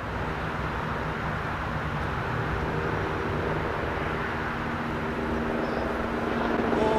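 Steady outdoor background noise, a low even hum of the kind distant traffic makes, growing slightly louder near the end.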